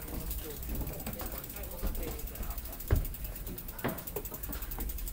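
Bicycle freewheel hub ticking rapidly as the bike is wheeled along on foot. There are two sharp knocks about three and four seconds in.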